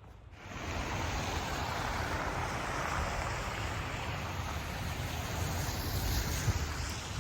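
Snowstorm wind rising suddenly about half a second in and blowing steadily as a loud rush, with rumbling wind buffets on the microphone.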